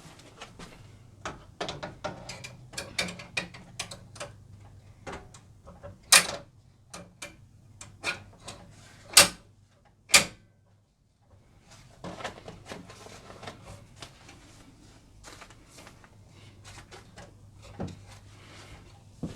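Hard clicks, taps and clatter of an embroidery hoop and its parts being handled, with three sharper knocks about six, nine and ten seconds in. A faint steady low hum sits underneath.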